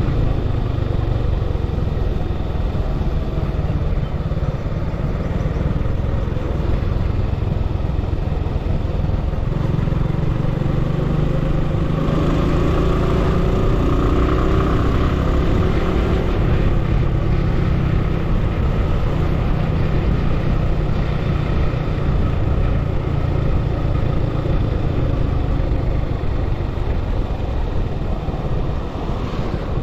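Road vehicle on the move, a steady engine and road rumble with wind noise; about halfway through an engine note rises and falls briefly.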